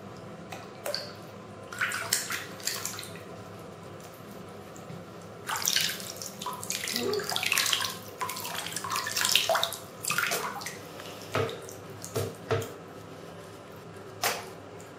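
Water from a running faucet splashing in uneven bursts as a cat sits under the stream, with a few short, sharp splashes near the end.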